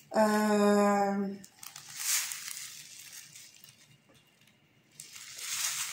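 A woman's voice is held on one steady pitch for about a second. Then, twice, the clear plastic packets of diamond-painting rhinestones are shaken and crinkled, giving a hissy rustle of plastic and loose crystals.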